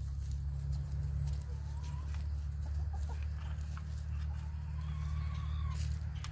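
Domestic hens clucking, with two drawn-out calls, over a steady low rumble and a few light clicks and taps.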